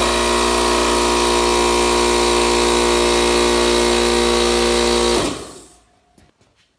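Old Coleman Powermate air compressor, about 4 horsepower with an 11-gallon tank, running steady and deafening as it pumps up from empty, then shutting off about five seconds in and dying away within a second.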